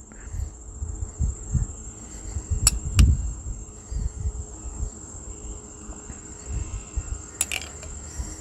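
Wind gusting on the microphone as a low rumble, under a steady high-pitched chirring of crickets. A spoon clinks against a glass pizza-sauce jar twice about three seconds in and once more near the end.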